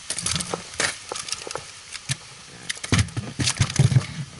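A freshly landed pike thrashing in a boat: an irregular run of knocks and thumps, loudest near the end.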